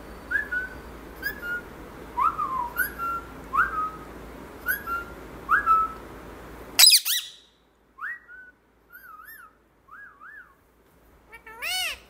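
Indian ringneck parakeet whistling a string of short, rising notes, about one a second, then giving one loud, sharp squawk about seven seconds in. A few wavering whistles follow, and a loud, falling call comes near the end.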